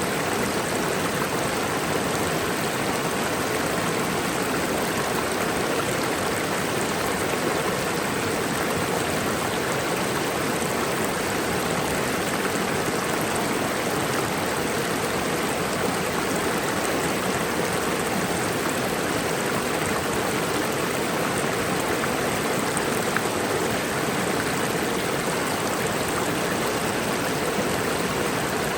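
Mountain waterfall: water falling and rushing in a steady, unbroken roar.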